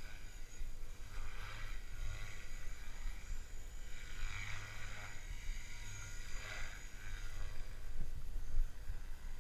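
Gaui X3 electric RC helicopter flying at a distance, its rotor and motor buzz swelling and fading several times as it moves around, over a low wind rumble on the microphone.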